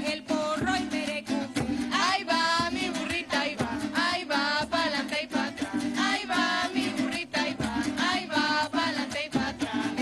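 Live eastern Venezuelan folk music of a diversión oriental: voices singing over small strummed guitars with a steady, regular beat.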